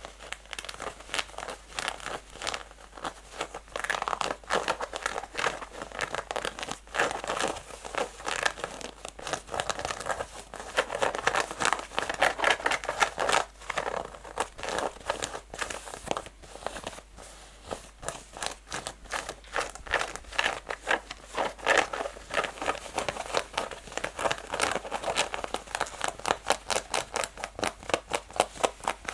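Natural fingernails scratching fast and hard at rough, textured denim jeans, a rapid run of rasping strokes. Near the end the strokes come in quick, even succession.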